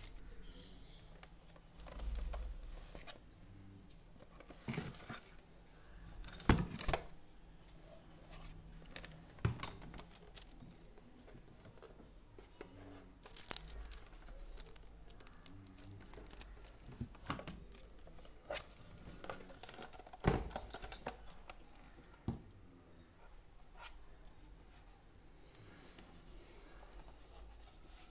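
Plastic packaging rustling and crinkling and cardboard shuffling as a new UPS is unpacked and handled by hand, with scattered clicks and a few sharper knocks.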